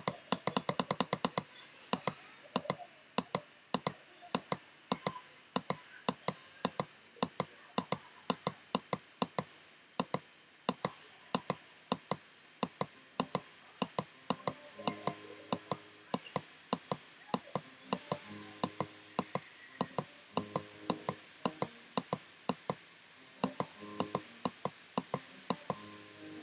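Repeated sharp clicks of a computer input, very quick at first and then a few a second, as a digital drawing is undone stroke by stroke.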